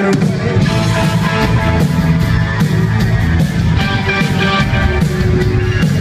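Live rock band playing loud, with electric guitar and synthesizer keyboard over a steady drum beat.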